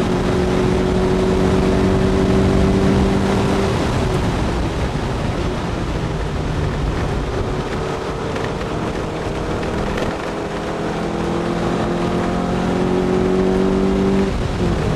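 Lotus Elise S1's Rover K-series four-cylinder engine heard from inside the open-bodied cabin at track speed, under a steady wash of wind and road noise. The engine holds a steady note, drops away about four seconds in through a bend, builds back up from about eight seconds, and lifts off sharply just before the end.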